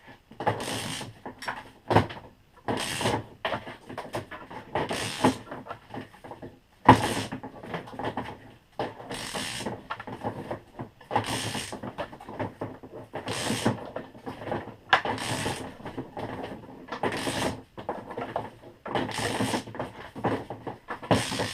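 Wire being pulled stroke by stroke through a TNT Tooling WSA wire stripper, its cutter slitting the insulation: a short scraping rasp about every two seconds, with small clicks and knocks between.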